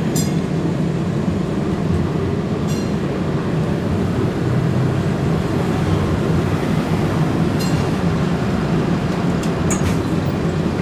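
Interior of a UTDC/Hawker Siddeley CLRV streetcar running along the track: a steady low rumble, with a few brief high squeaks and some short ticks near the end.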